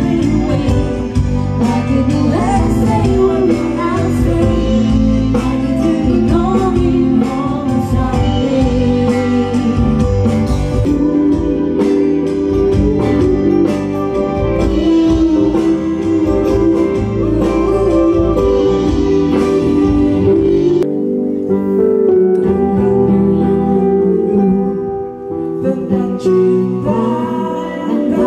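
Live band playing a song, with a woman and a man singing into microphones over electric guitars, bass and keyboard. About three-quarters of the way through the low end drops out for a few seconds, then comes back near the end.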